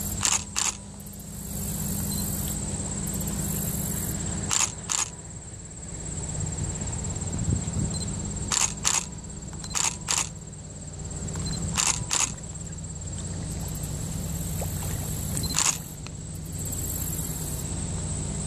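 Low steady drone of the tanker Thalassa Desgagnés's engine as the ship passes, broken every few seconds by pairs of short, sharp clicks.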